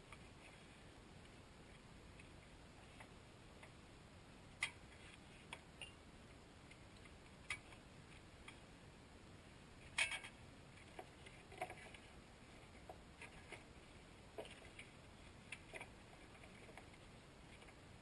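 Near silence broken by scattered light clicks and taps, about fifteen of them, the loudest about ten seconds in: hand tools and parts being handled in the engine bay.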